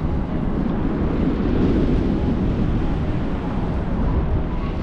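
Wind rushing over the microphone during a paraglider flight: a steady, heavy low rumbling rush of air.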